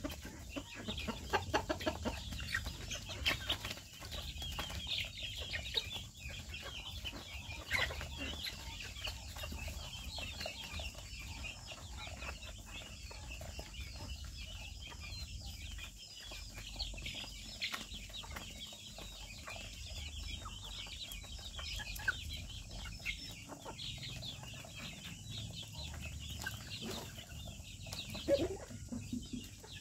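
A mixed flock of chickens with young chicks clucking and peeping, a dense run of short high-pitched peeps throughout, and a louder call just before the end.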